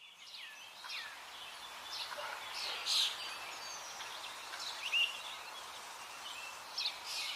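Birds chirping and calling: scattered short chirps and quick sweeping notes over a faint steady hiss, with the louder calls about three and five seconds in.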